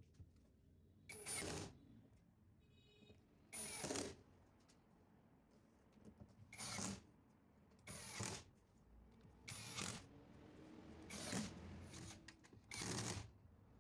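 Seven short mechanical strokes, each about half a second long, coming one to three seconds apart at an uneven pace.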